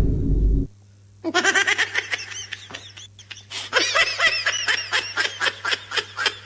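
A loud, deep noise cuts off abruptly near the start. After a short pause comes a meme sound effect of fast, high-pitched laughter in quick staccato bursts, running to the end.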